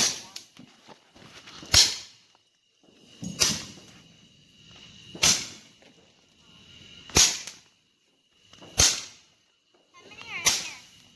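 Consumer firework firing a run of sharp bangs, one about every two seconds, seven in all, each with a short echo after it.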